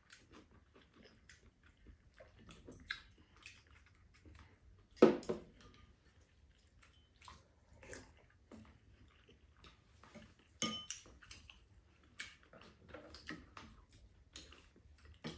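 Table eating sounds: spoons and chopsticks tapping and scraping ceramic bowls, with soup being slurped from a spoon. Scattered light clicks throughout, a louder sound about five seconds in and a ringing clink about eleven seconds in.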